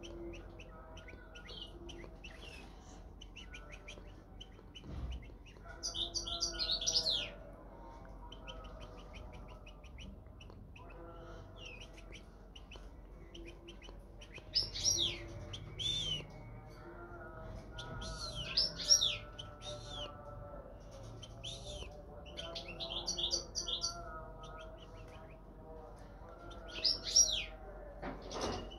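European goldfinch singing in bursts of quick twittering phrases with fast sweeping notes, several times with pauses between.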